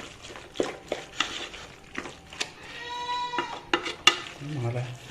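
Spoon scraping and knocking against a cooking pan as beef and spice masala are stirred over the heat, with a light sizzle of frying. A short high-pitched squeal comes about three seconds in.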